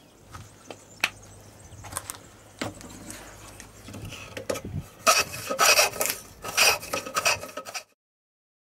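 Wooden round plane worked over the corner of a piece of wood: light knocks of handling for the first few seconds, then a quick run of about five shaving strokes, the loudest part.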